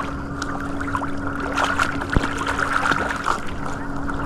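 Water lapping and small splashes around a stand-up paddleboard over a steady hum, with one sharp knock about two seconds in.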